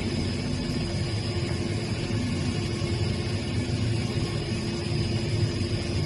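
Robotic belt grinding machine running: a steady mechanical hum and rumble with a faint constant high whine, unchanging throughout.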